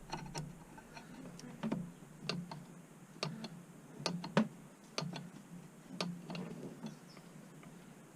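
Irregular metallic clicks and taps as a flat-bladed screwdriver levers against the rear brake pad and caliper of a Honda ST1100, pressing the caliper pistons back.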